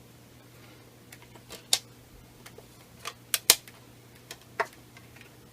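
Sharp, irregular plastic clicks and snaps from a DVD box set and its disc holders being handled, the two loudest about a second and a half and three and a half seconds in.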